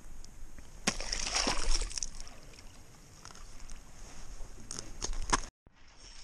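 A walleye splashing into the water as it is released down an augered hole in the ice, about a second in, followed by hand and clothing noise and a few knocks near the end.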